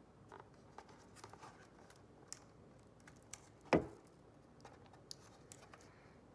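Faint scattered clicks and light rustles of hands handling the laptop's screen parts and tools. A single spoken word breaks in a little past halfway.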